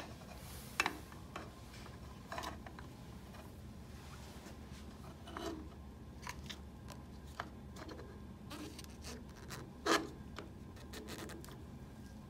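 Handling noises as a print engine and its ink tubing are fitted into a metal print head housing: scattered small clicks, taps and light rubbing, with the loudest knock about ten seconds in.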